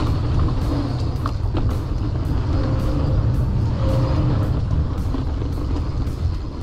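Rigid single-speed 29er mountain bike rolling fast down a dirt trail: a deep steady rumble of wind on the microphone and tyres on the dirt, with scattered knocks and rattles from the unsuspended bike.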